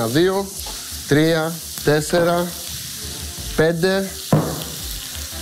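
Stir-fry vegetables (spring onion, red and green peppers, garlic) sizzling steadily in plenty of oil in a frying pan on a well-heated burner. Short voice-like sounds and a single knock about four seconds in are heard over it.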